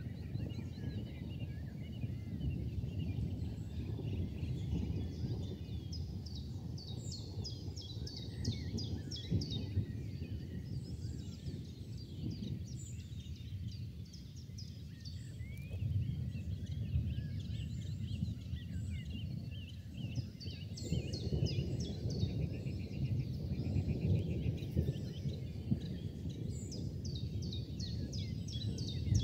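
Outdoor evening ambience: small birds chirping in quick repeated series over a steady low rumble that swells and fades.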